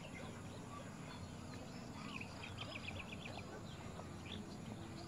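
Birds calling faintly: scattered short chirps, with a quick run of about seven short notes about halfway through, over a steady low background hiss.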